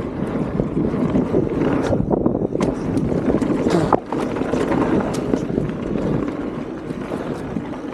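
Mountain bike riding down a dirt trail: steady tyre rumble and wind on the microphone, with scattered sharp clicks and knocks as the bike rattles over rough ground.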